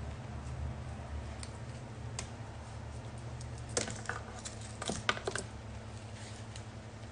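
Scattered light clicks and snaps, most of them about four to five seconds in, from flower stems being trimmed off a potted alpine strawberry plant, over a steady low hum.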